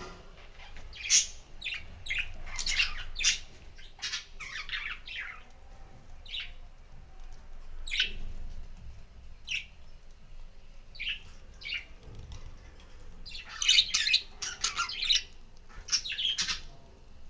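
Pet budgerigars calling in short, sharp chirps and squawks. The calls come in scattered bursts, busiest in the first few seconds and again near the end.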